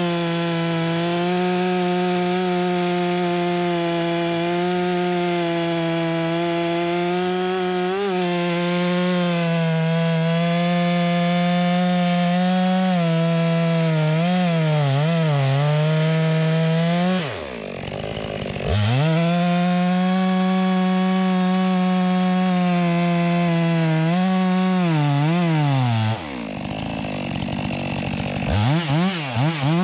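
Stihl MS462 two-stroke chainsaw running at full throttle while ripping lengthwise through a large firewood round (noodling), its pitch sagging and recovering as the chain loads up in the cut. It drops to idle about 17 s in and revs back up, drops to idle again about 26 s in, then revs in short blips near the end.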